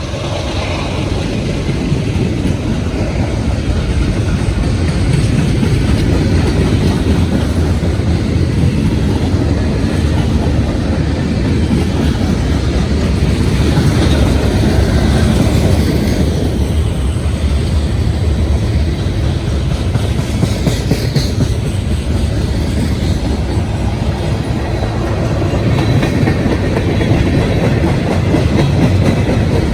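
Freight train's cars rolling steadily past on the rails, with wheels clacking over the track.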